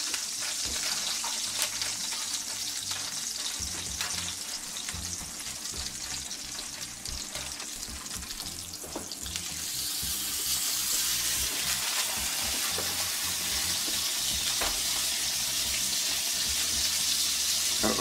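Beef burger patties frying in hot canola oil in a cast iron skillet, a steady sizzle. The sizzle grows louder about halfway through as a fresh raw patty is laid into the pan.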